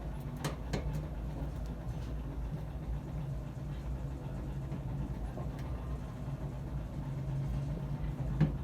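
Steady low motor hum, with a few light clicks in the first second and another near the end.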